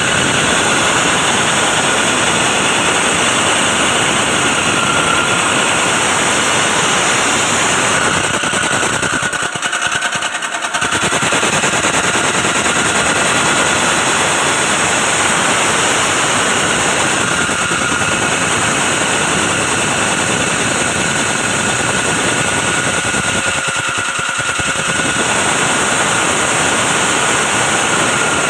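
Milling machine running, a loud, steady high whine over dense mechanical noise. It dips briefly twice, about ten seconds in and again about twenty-four seconds in.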